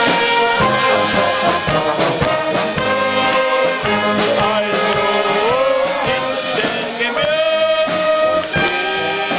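Bohemian-style brass band playing live, with trumpets and trombones carrying sustained melody notes over a steady beat.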